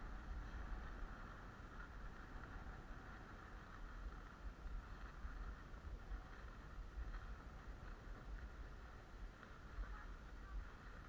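Skis sliding and scraping steadily over packed, groomed snow during a downhill run, with wind buffeting the microphone.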